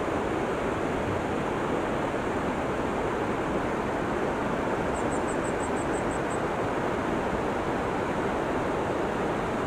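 Steady rushing of a tall, roughly 130-metre waterfall, a dense, even noise of falling water. About five seconds in, a short faint high-pitched trill of quick ticks.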